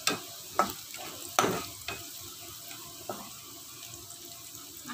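Shallots, garlic-candlenut paste and galangal sizzling in hot oil in a wok while a metal spatula stirs and scrapes them, with a few sharp clicks of the spatula against the pan, the loudest about a second and a half in.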